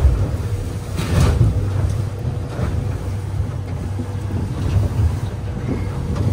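Steady low rumble aboard a small fishing boat, its engine running under wind buffeting the microphone, with a short knock at the start and another about a second in.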